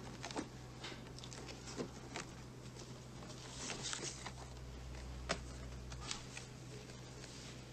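Hands flipping through old record albums in a wooden crate: scattered light knocks and rustles of the sleeves against one another, with a sharper knock about five seconds in, over a steady low hum.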